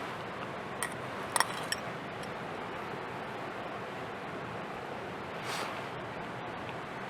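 Steady outdoor hiss with a few sharp clicks or clinks about a second in, and a brief soft rush of noise near the end.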